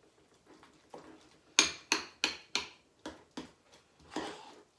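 A spoon clinking against a ceramic bowl while stirring and mashing potato salad: a run of sharp clinks, about three a second, through the middle, then a short scrape near the end.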